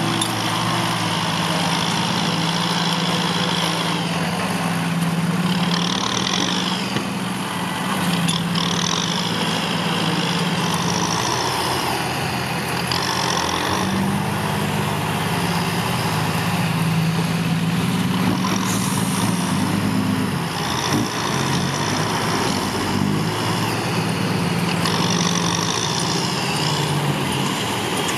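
Kubota diesel tractor engines working under load as front dozer blades push and level soil, a steady engine note throughout. A high whine rises and falls several times over it.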